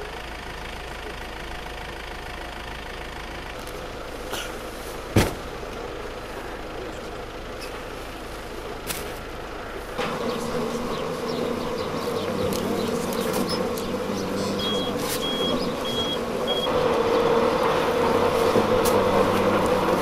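An engine running steadily, louder from about halfway through, with a sharp click about a quarter of the way in and four short, evenly spaced high beeps about three-quarters of the way through.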